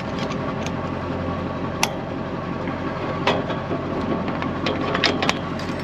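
An engine idling steadily, with a few sharp clicks and knocks scattered over it.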